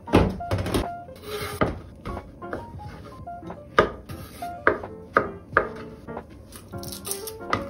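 Kitchen knife slicing shiitake mushrooms, the blade knocking on a wooden cutting board at uneven intervals, over light background music.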